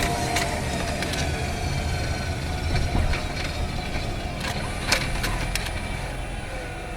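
Engine-bay running noise of a 2019 Honda Freed Hybrid in town driving: a low road and drivetrain rumble with several thin whining tones that drift slowly down in pitch as the sound eases off, likely from the car slowing. A few sharp clicks and knocks come through, the loudest about five seconds in.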